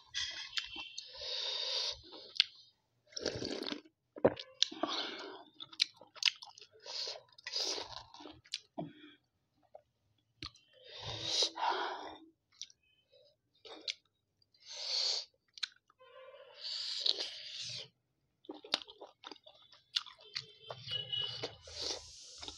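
Close-miked chewing of steamed chicken momo, in irregular bursts of mouth sounds with short pauses between them.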